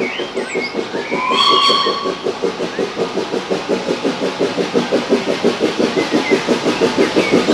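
Steam locomotive gives a short whistle about a second in, then works along with an even, quick chuffing exhaust, about five beats a second, growing louder as it approaches. Faint bird chirps in the background.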